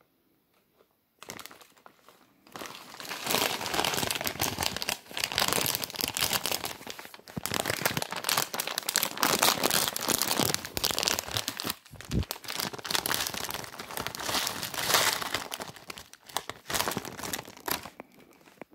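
Plastic wrapper of a Shin Ramyun instant noodle packet crinkling and crackling loudly as it is handled and torn open with the teeth. It starts about a second in and dies down near the end.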